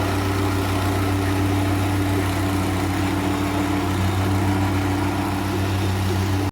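An engine idling steadily with a low, even hum that cuts off abruptly at the end.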